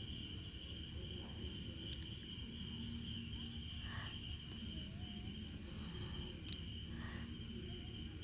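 A faint, steady high-pitched whine with a low hum beneath it and a few faint clicks. The scene's own sound, the women's singing and the pestle, is turned down almost to nothing.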